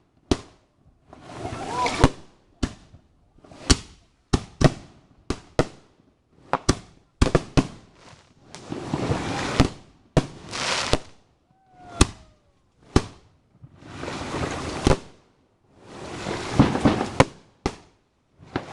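Fireworks going off: many sharp bangs and pops, mixed with stretches of hissing and crackling that swell for a second or two and stop abruptly.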